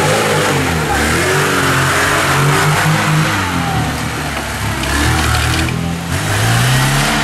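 Lada Niva's four-cylinder engine revving up and down under load as it crawls up a steep, rutted gully, the revs climbing again about six seconds in.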